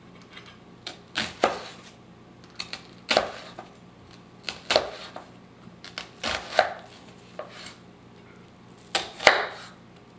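Chef's knife slicing down through a red onion half and striking a wooden cutting board. Each stroke is a short crunch and knock, about ten in all with pauses between, often in quick pairs.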